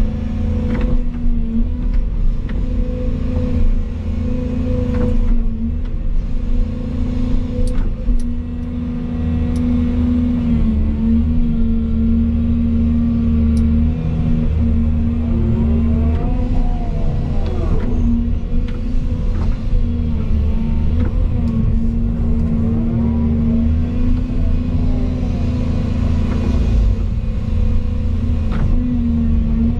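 Volvo EC220 excavator's diesel engine running steadily, heard from inside the cab while the boom and bucket work. A whine rises and falls a few times around the middle and near the end, with occasional short clicks.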